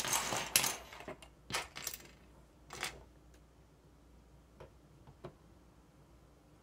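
Loose plastic LEGO pieces clattering and clicking as a hand rummages through them: a dense rattle in the first second, then a few scattered clicks that die away after about three seconds.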